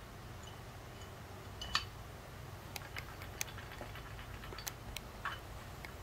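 Scattered light metallic clicks and clinks as scooter CVT drivetrain parts are handled and set against each other, the loudest about two seconds in, over a low steady background hum.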